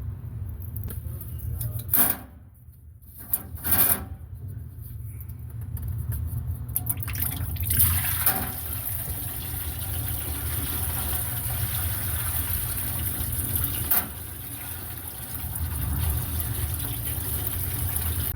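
Engine oil pouring from the oil pan of a 2020 Mustang 5.0 into a drain pan: a few knocks early on as the plastic twist-type drain plug is worked, then a steady stream of oil from about eight seconds in. A steady low hum runs underneath.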